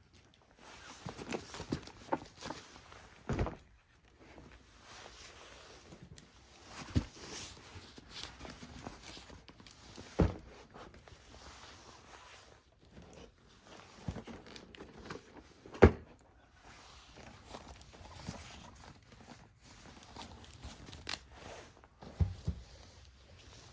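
Handling noises: scattered knocks and taps with soft rustling, as toys and plastic packaging are picked up and set down. The sharpest knock comes about two-thirds of the way in.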